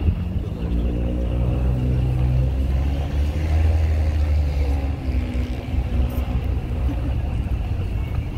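Diesel engine of a decorated tractor-trailer running at low speed, a deep steady rumble that swells a little about three to five seconds in.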